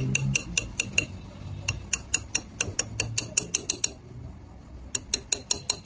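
Small ratcheting handle clicking in quick runs of about five clicks a second, with two short pauses, as it screws a threaded insert into a broken-bolt hole in an engine cylinder head.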